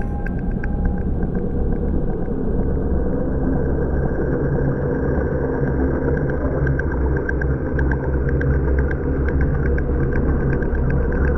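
Steady deep rumbling drone with a thin high tone and fast faint ticking over it, part of an electronic ambient soundtrack.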